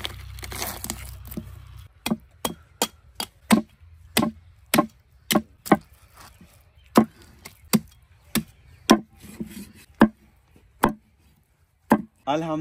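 Heavy cleaver chopping through a large fish's flesh and bone on a wooden log chopping block, cutting it into thick chunks. About a second and a half of scraping and cutting comes first, then about twenty sharp chops at uneven intervals, roughly two a second.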